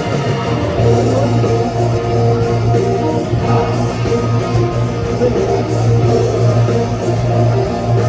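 Live rock band playing an instrumental passage, with guitars strumming over a steady bass line.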